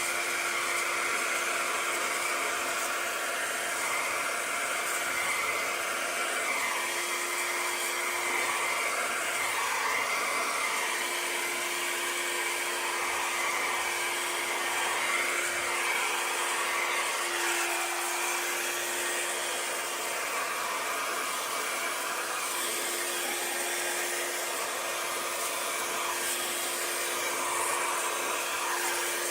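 Handheld hair dryer running steadily, blowing air over wet acrylic pour paint to push it around; a continuous rush of air with a steady motor hum that falters briefly about ten seconds in.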